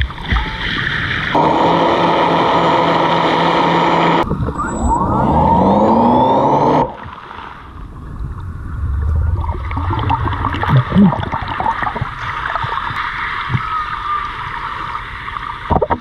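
A boat's engine heard underwater: a steady hum that turns into sweeping, up-and-down shifting tones as it passes, then cuts off suddenly about seven seconds in. After that come quieter underwater crackling and bubbling.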